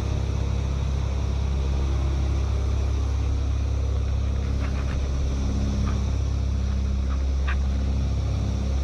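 Steady low mechanical drone made of several level hum tones, with a few faint short chirps in the middle.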